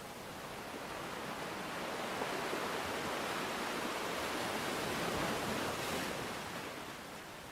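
Dense, even rushing of water noise that swells over several seconds and eases off again near the end.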